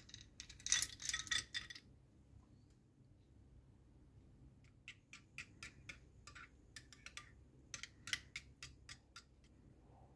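Chocolate coins poured from a bowl, clattering together and onto the ceramic bowl in a quick cluster for about a second and a half. Later a metal spoon stirs the melted chocolate and cream ganache, clinking against the ceramic bowl in a run of light clicks, about four a second.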